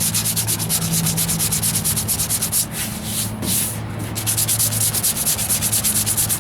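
Sandpaper on a sponge sanding block rubbed by hand over a filler-primed steel wheel arch in quick, even back-and-forth strokes, with a short break in the rhythm about three seconds in.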